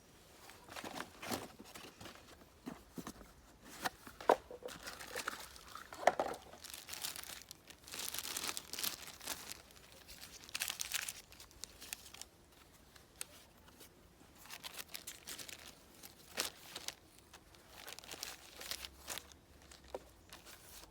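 Packaging crinkling and rustling as it is handled and pulled open, with scattered sharp clicks and taps.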